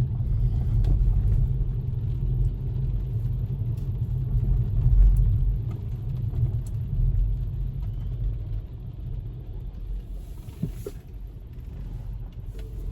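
Steady low rumble of a car moving along a road, its engine and tyre noise strongest in the bass, easing a little about halfway through.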